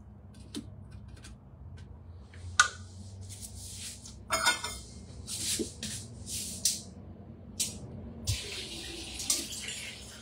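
A few light clicks, then water from a kitchen tap running in several short spurts with sharp starts, the longest near the end.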